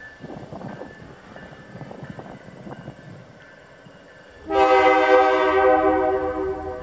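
Diesel locomotive air horn on an LTEX GP35U sounding one long, loud blast about four and a half seconds in, held to the end, as the train nears a road grade crossing.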